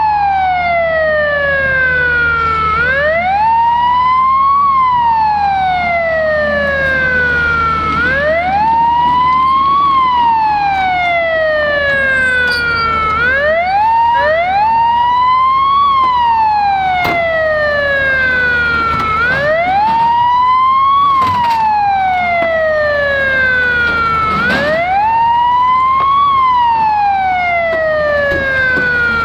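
Fire truck siren in wail mode, repeating a slow falling sweep from high to low pitch and then a quick climb back up, about every five seconds. A steady low hum runs underneath.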